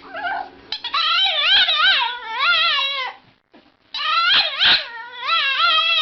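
A dog whining and howling in long, wavering, high cries that slide up and down in pitch. Two long runs of crying are broken by a short pause about halfway.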